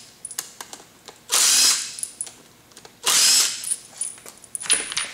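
Pneumatic drill with a socket bit running in three short bursts of about half a second each, unscrewing the mould's bolts. Small metal clicks come between the bursts.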